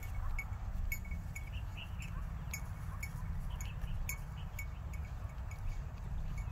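Cattle bells clinking irregularly as the animals move, each a short, bright ring at the same pitch, over a steady low rumble of wind on the microphone.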